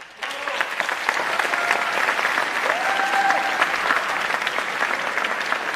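Audience breaking into applause at the close of an opera, loud dense clapping that starts suddenly just after the orchestra's final chord, with a few shouts from the crowd mixed in.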